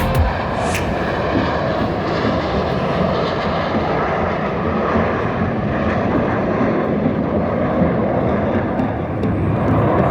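Airplane engine noise: a steady drone without any clear rise or fall.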